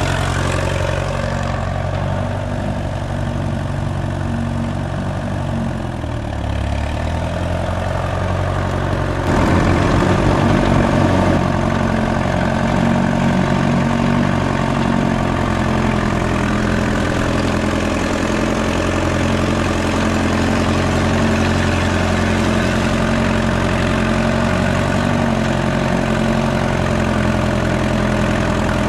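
1947 Case VAC tractor's four-cylinder engine running steadily as the tractor drives, long-dormant and now running well. About nine seconds in the engine sound gets louder and stays that way.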